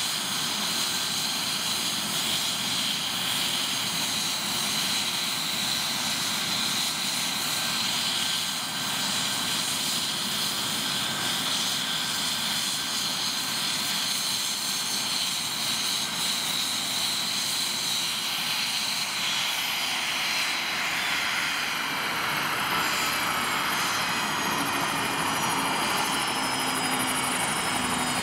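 Eurocopter AS365 Dauphin's twin turboshaft engines running with the main rotor turning on the ground: a steady high turbine whine over the rotor noise. From about twenty seconds in, further whines glide down in pitch.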